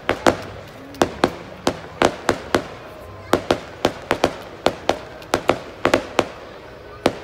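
Aerial fireworks bursting overhead in a rapid, irregular series of sharp bangs, about three or four a second.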